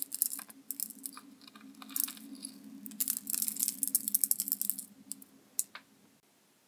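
Small heart-shaped confetti sprinkled onto a tabletop: a scatter of light ticks and clicks that thins out after about five seconds, over a low steady hum that cuts off about six seconds in.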